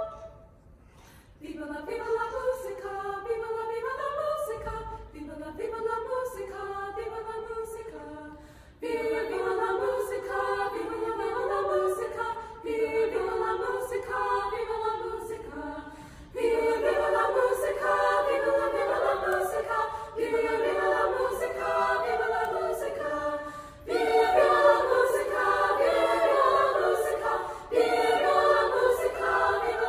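Girls' choir singing in parts with high voices. A held chord cuts off right at the start, and after a pause of about a second and a half the choir comes back in, phrase after phrase with short breaks between.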